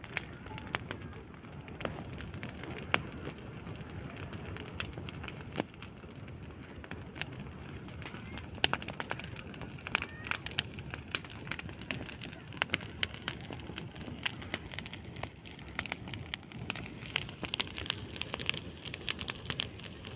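Wood bonfire burning, with irregular sharp crackles and pops over a low steady rush of flame. The pops come thicker in the second half.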